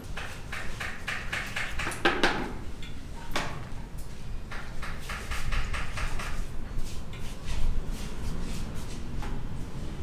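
Hand-tool work: two runs of quick, rhythmic scraping or tapping strokes, about four a second, with a couple of louder knocks in between.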